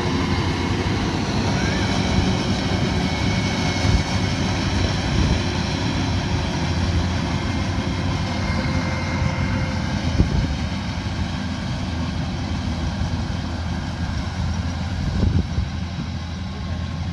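Kubota combine harvester running steadily while harvesting rice: a continuous engine and machinery noise that holds at the same level with no clear changes.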